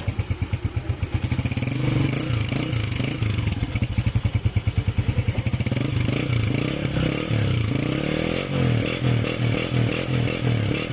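Honda CG125's single-cylinder four-stroke engine running with a freshly fitted cam gear, its exhaust pulsing and the revs rising and falling as the throttle is worked.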